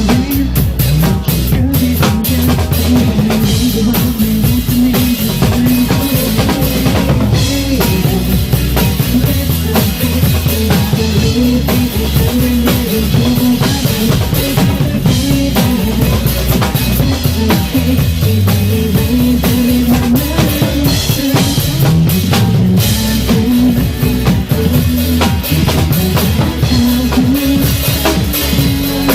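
Drum kit played live over a backing track of pop music: a steady beat of bass drum and snare with cymbals, the recorded song's melody and bass running underneath.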